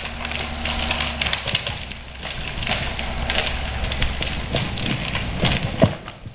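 A felled bark-beetle-infested spruce trunk being dragged by rope across the forest floor: irregular cracking and snapping of branches and debris, with a sharp crack near the end. A vehicle engine runs low underneath for the first two seconds.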